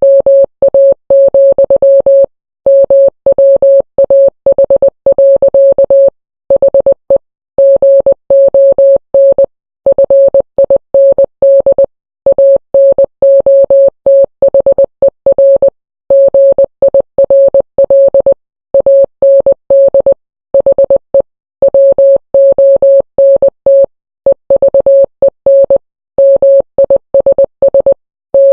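Morse code: a single steady mid-pitched beep keyed on and off in short dots and longer dashes, grouped into letters and words by brief silent gaps.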